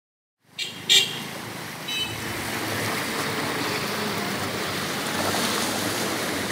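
Flooded town street: a short vehicle-horn toot about a second in and another brief toot near two seconds, over a steady rushing noise of moving water and traffic, after a brief silence at the start.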